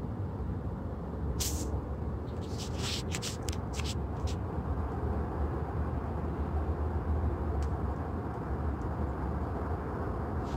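Distant city traffic noise heard as a steady low rumble, with a cluster of short crackles between about one and a half and four seconds in.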